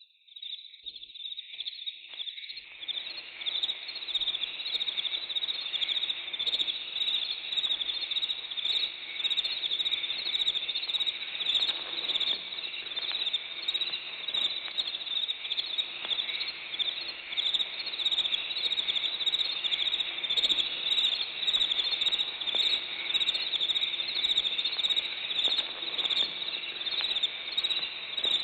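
Chorus of crickets chirping: a dense, unbroken high trill that fades in over the first couple of seconds and then holds steady.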